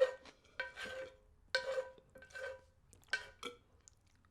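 Cutlery scraping and clinking against a ceramic dish, about five short strokes, each leaving the same ringing tone from the dish.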